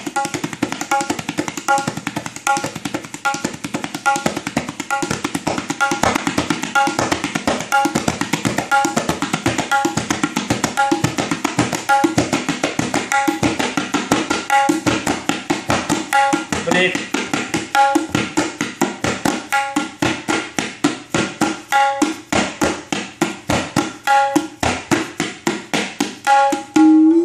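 Tabla played as an imitation of a moving train: a fast, even run of strokes on the dayan and bayan, like wheels clattering over rail joints. In the second half the strokes space out and slow down, like a train slowing.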